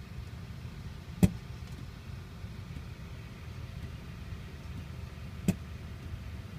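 Two sharp bangs from a 2007 Mini Cooper S that has been switched off, the first about a second in and the second about four seconds later, over a steady low hum. The owner says the banging comes after shutdown and runs longer the hotter the car is.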